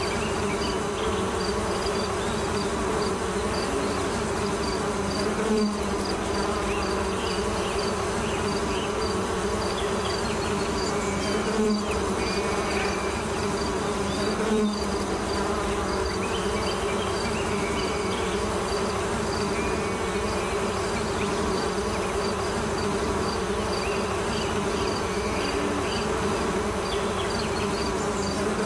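Steady insect-like buzzing, with a quick, even ticking high above it.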